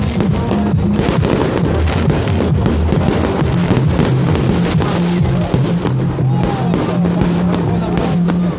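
Loud music with steady bass notes, mixed with many sharp crackles and bangs of a fireworks display.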